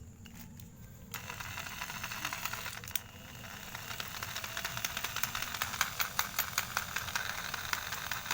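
Orion electric jigsaw running without load on its lowest speed setting, the blade moving up and down with a rapid rattle. It starts about a second in, dips briefly near three seconds, then runs on a little louder.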